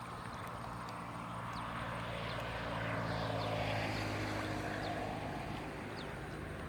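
A motor engine droning steadily as it passes, growing louder to a peak about three to four seconds in, then fading somewhat.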